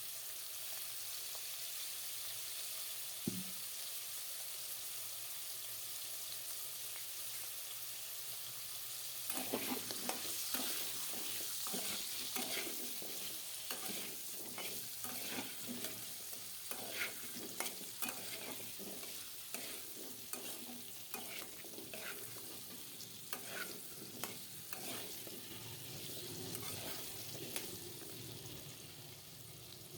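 New potatoes frying in hot oil in a karai, sizzling steadily. From about nine seconds in they are stirred with a spatula: many short scrapes and knocks against the pan over the sizzle, thinning out near the end.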